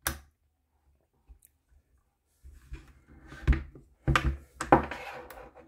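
Hands handling a replica Ops-Core high-cut helmet with its attached comms headset and rail gear. After a couple of seconds of near silence, a series of light clicks and knocks with rustling as it is turned over.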